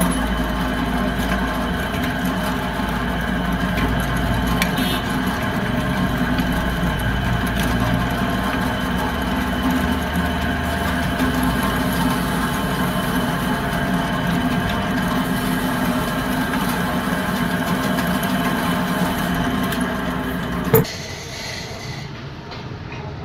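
Electric drill press running steadily while drilling out the rivets that hold the old lining on a tractor brake shoe. The hum cuts off near the end with a sharp knock.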